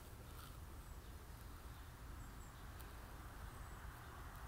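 Faint outdoor ambience: a steady low rumble with a few short, thin, high bird chirps scattered through it.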